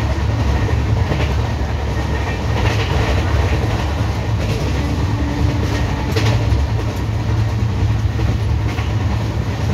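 LHB passenger coach running along the track, heard from on board: a steady, loud rolling rumble of wheels on rail with a few scattered clacks.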